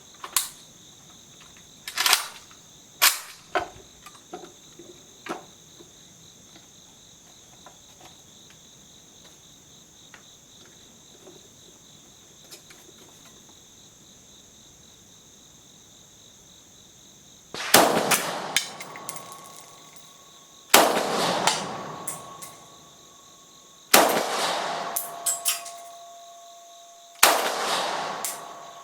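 Bulgarian AK-74 rifle firing 5.45×39 mm Red Army Standard ammunition: four single aimed shots about three seconds apart, each with a long echoing tail, starting a little past halfway. A few sharp clicks come in the first few seconds before a quiet stretch.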